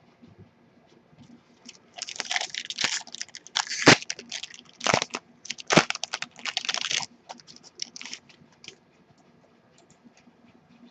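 Foil trading-card pack wrapper being torn open and crumpled, a crinkling rustle with several sharp crackles from about two seconds in until about seven seconds, then only faint ticks as the cards are handled.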